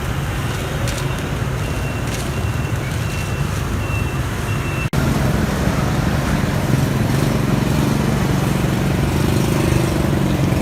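Street traffic with engines running past. A string of short high beeps sounds a couple of seconds in. After an abrupt break about halfway through, the low engine rumble is louder.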